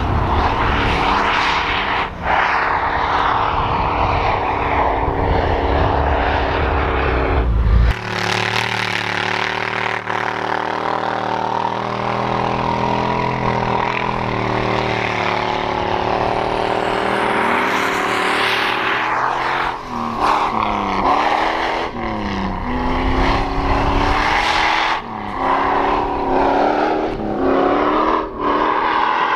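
V8 engines of swapped off-road Jeeps under hard throttle in snow, held at steady revs for long stretches, then revving up and down several times near the end with short drops as the throttle is lifted.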